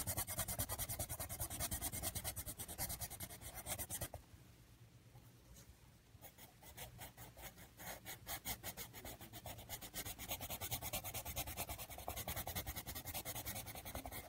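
A colouring tool scratching across paper in rapid back-and-forth strokes as an area of a drawing is coloured in. The strokes pause briefly about four seconds in, then start again and keep going.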